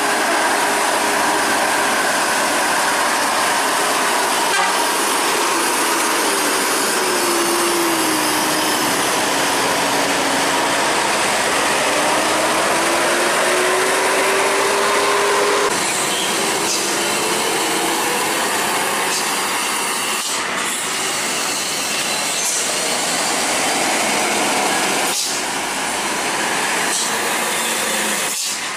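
Heavy diesel vehicle engine noise from a Mercedes-Benz coach working round a hairpin bend, with a whine that sinks slowly in pitch and climbs back up as the engine speed changes. About halfway through the sound cuts abruptly to more heavy-vehicle engine noise from slow-moving trucks, with another rising whine.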